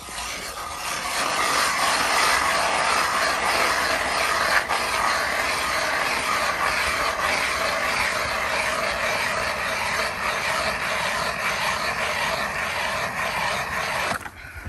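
Hand-crank ice auger boring through ice: a steady scraping grind as the blades shave the ice. It stops near the end.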